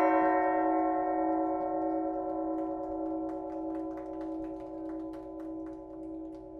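A large new church bell rings out after a single strike: a low hum with a slow wobble and higher overtones, fading steadily. Faint light ticks can be heard under it from about two and a half seconds in.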